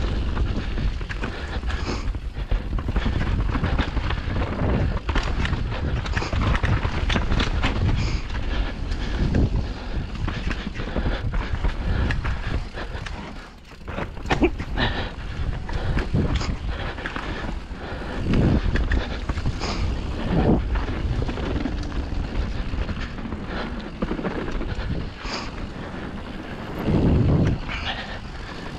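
Wind buffeting the microphone during a mountain-bike descent, with the tyres on rough trail and the bike rattling and knocking over bumps; a short lull about halfway through.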